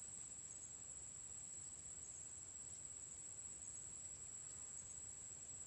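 Crickets trilling: a faint, steady, high-pitched drone over a low background hiss.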